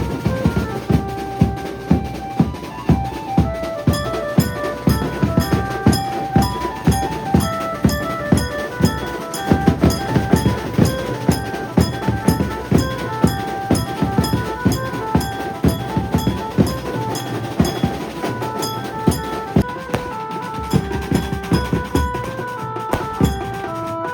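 Maharashtrian banjo band playing: a stepping banjo melody over loud, driving drums, about two heavy beats a second, with steady cymbal ticks.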